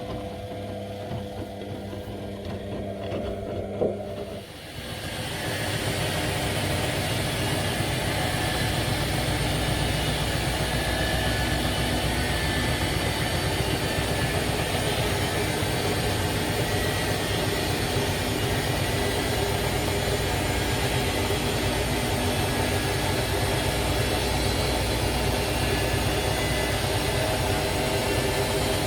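Washing machine washing with water sloshing and light knocks, then about four seconds in its motor winds up into the final spin. Within a couple of seconds it settles into a steady, loud hum and rush of the drum spinning.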